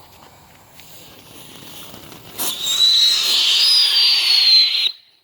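Brothers Icebird novelty spinner firework igniting with a sharp pop about halfway through, then hissing loudly with a steady whistle over the hiss for about two and a half seconds before the sound cuts off suddenly.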